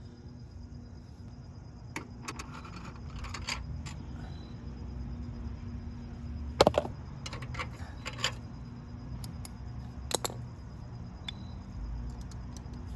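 Scattered metallic clicks and clinks of hand tools and small hardware being handled while the stock docking-point pieces are unbolted from the motorcycle's fender. The loudest click comes about six and a half seconds in.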